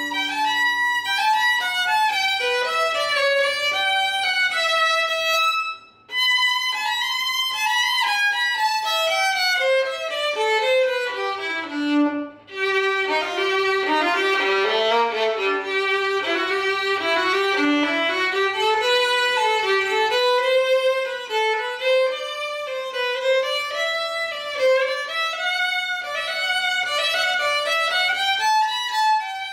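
Solo violin played with the bow: a melody moving note to note, broken by two brief pauses, about six and about twelve seconds in.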